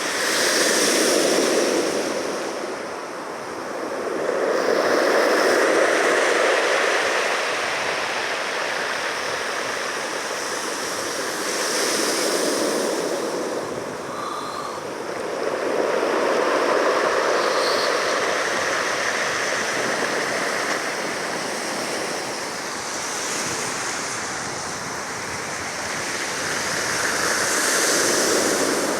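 Ocean waves breaking and washing on the shore, the surf rising and falling in swells every few seconds.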